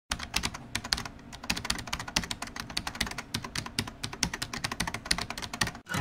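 Rapid typing on a computer keyboard: a dense, irregular run of key clicks, several a second, that stops abruptly near the end.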